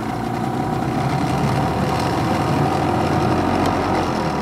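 Small Yamaha two-stroke outboard motor running steadily at a fast idle, a steady hum over a low rumble. The motor seems to want to idle high and shuts off if let down to a low idle.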